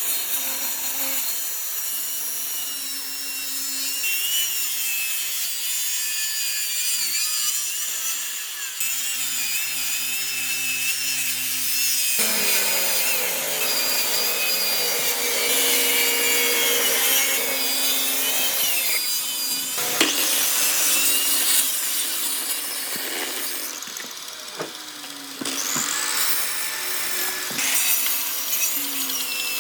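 Power tools cutting and shaping solid wood, a high whine wavering in pitch as they work. The sound changes abruptly several times.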